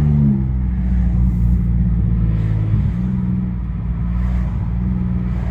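Pontiac Grand Prix GT's V6 through a catless exhaust, running under load in a low gear with a steady drone. The revs bend briefly at the start and rise and dip slightly a couple of seconds in.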